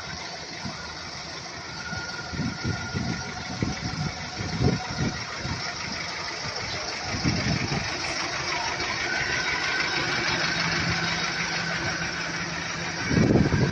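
Fire truck engine running steadily close by, with a faint steady whine above it. Irregular low rumbles come and go and grow louder near the end.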